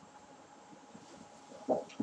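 Quiet room tone with a faint steady hiss and hum, then a woman's voice starts speaking near the end.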